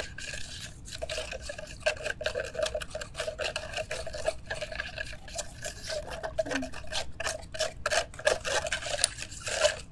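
Spoons stirring borax into water in plastic tubs, with a rapid run of scrapes and clicks against the plastic sides while the powder dissolves.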